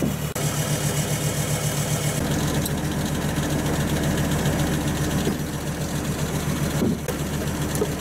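Off-road truck's diesel engine idling steadily with an even pulse. A second steady hum joins about two seconds in.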